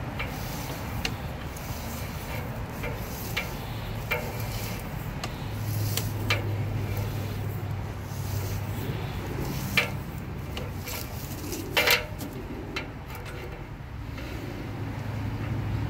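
Sewer inspection camera cable being pushed through a drain pipe, with scattered sharp clicks and scrapes as the camera head and cable knock against the pipe, the two strongest about ten and twelve seconds in, over a steady low hum.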